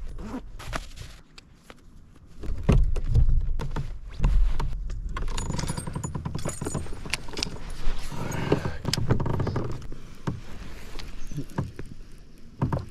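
Clothing and gear being handled aboard a plastic fishing kayak: rustling, buckle clicks and knocks on the hull, with heavy rumbling handling noise on the microphone. Later comes the ticking of a baitcasting reel being cranked to retrieve a spinnerbait.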